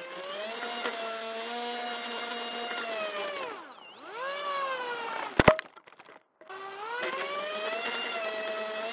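Propeller whine from a 300-class 1600 kV brushless motor, its pitch sinking and rising again a few seconds in. About halfway through come two sharp knocks and a second of near silence. Then the whine winds back up and holds a steady pitch.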